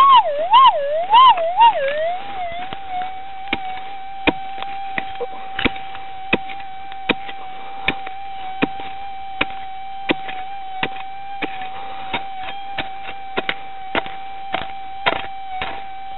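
Metal detector's steady threshold hum, warbling up and down in pitch several times in the first two seconds as the coil passes over a buried target. Then a pick strikes repeatedly into stony dirt, about one or two blows a second, while the hum runs on.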